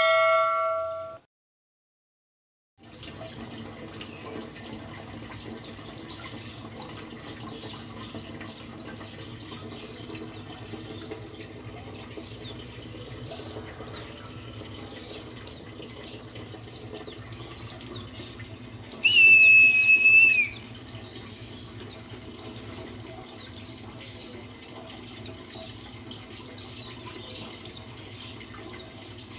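A white-eye (the 'pleci buxtoni' of Indonesian bird-keepers) singing: short, quick, high twittering phrases repeated every second or two over a steady low hum, with one level whistle about two-thirds of the way through. It is preceded by a short electronic tone and a pause of about two seconds.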